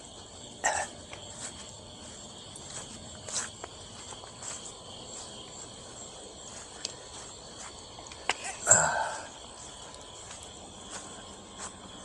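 Crickets chirping steadily in the night air, with a few light scuffs and clicks and one louder short rustling sound about nine seconds in.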